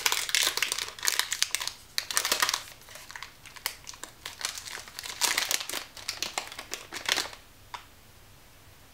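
Plastic wrapper of a protein bar crinkling in irregular bursts as it is pulled open, stopping about seven seconds in.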